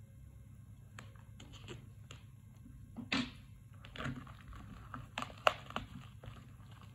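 Clear plastic shrink-wrap on a cardboard phone box being slit with a small knife and peeled off: scattered sharp ticks and scratches, with a louder scrape about three seconds in and a quick run of clicks and crinkles near the end.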